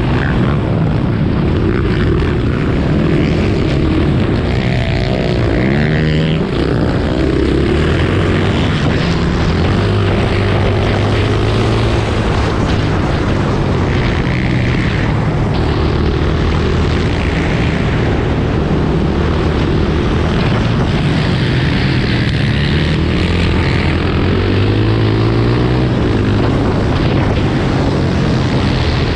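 Racing quad (ATV) engine heard from onboard, running at high revs the whole time and rising and falling in pitch as the throttle opens and closes through the corners.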